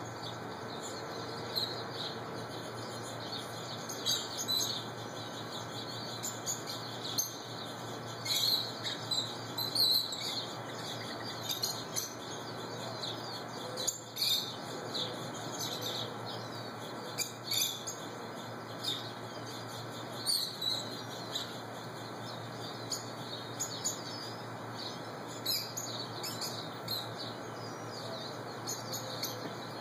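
Rosy-faced lovebirds chirping: many short, high-pitched chirps at irregular intervals, over a steady low hum.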